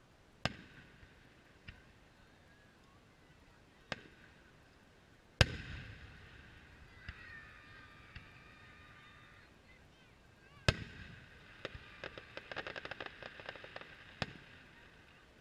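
Fireworks display: aerial shells bursting with sharp bangs at irregular intervals, the loudest about a third of the way in and another about two-thirds in. A rapid string of crackles follows the second, and a last bang comes near the end.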